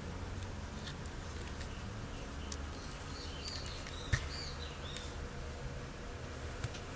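Light plastic clicks from the flip-down front panel of a GT Sound GTX 1000 car stereo being lowered and handled, with one sharp click about four seconds in, over a steady low hum. A few faint, short high chirps come in the middle.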